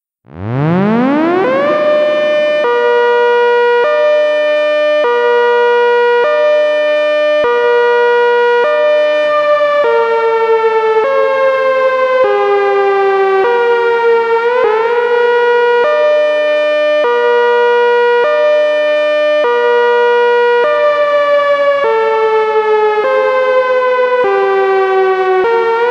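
Synthesized ACA Hurricane 130 dual-tone (8/10 port) siren sounding the Alternating Attack signal. It spins up from silence over the first second or two, then its chord switches back and forth between two pitches about every second and a quarter. Meanwhile the whole pitch sags slowly and swoops back up twice, once midway and once at the end.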